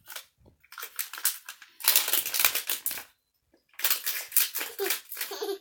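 Toy packaging being opened by hand: crinkling and tearing in rough bursts, with a short pause about halfway through.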